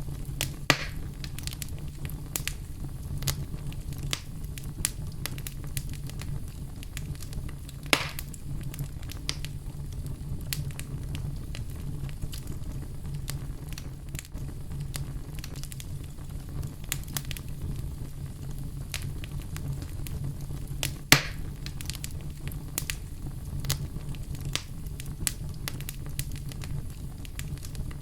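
Wood fire burning in a fireplace: a steady low rumble of flame with constant small crackles and a few sharper pops, the loudest about two-thirds of the way through.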